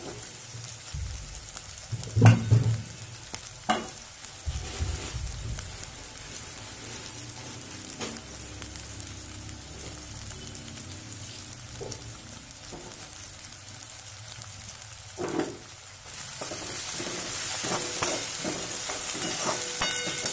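Chopped onions and potatoes sizzling in hot oil in a metal kadhai, a steady hiss broken by a few sharp knocks. The sizzle grows louder for the last few seconds as the pan is stirred with a steel spoon.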